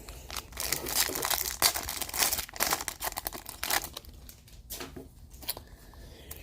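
A hockey card pack's wrapper being torn open and crinkled. There is a dense crackling for the first few seconds that thins out toward the end.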